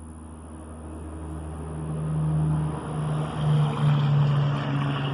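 A motor vehicle's engine drawing nearer: a steady engine hum that grows louder over the first two seconds or so, then holds.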